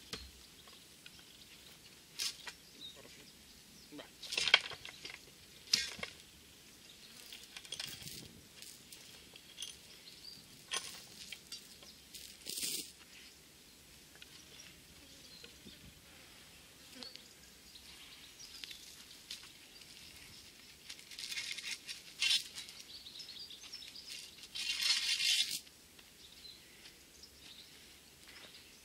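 Scattered metallic clinks and scrapes from a chain and a corrugated steel rebar as the rebar is levered out of the ground with a wooden pole, with a longer rattle lasting about a second near the end.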